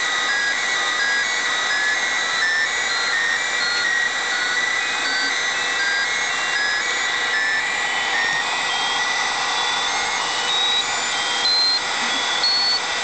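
Volkswagen door-ajar warning buzzer sounding continuously: a harsh electronic buzz with a steady high whine, overlaid by a stream of short beeps that hop up and down in pitch.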